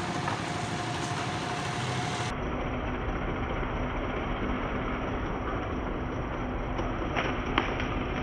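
Steady rumble of road traffic, with two short sharp clicks near the end.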